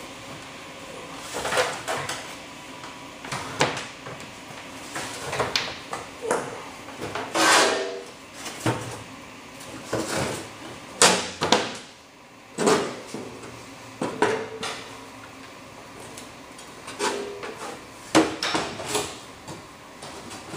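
Thin aluminium sheet panel being handled and set down on a steel workbench: a string of irregular knocks and clanks, some leaving the sheet ringing briefly.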